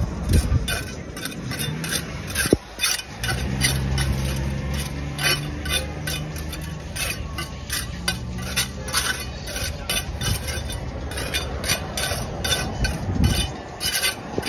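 A small metal hand trowel scraping and clinking against concrete paving blocks as it works the joints between them, in quick, repeated strokes, a few a second.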